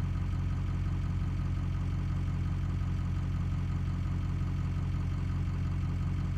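2004 Ford F-250's 6.0 Powerstroke V8 turbodiesel idling warm with no load, running with a steady hum. It has an uneven idle lope, which the owner puts down to 155 cc plugged-spill-port injectors running without the proper tune.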